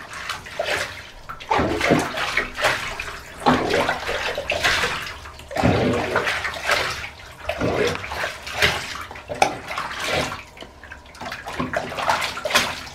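Bath water splashing and sloshing in a bathtub in irregular bursts, about one a second, as a wet puppy is washed.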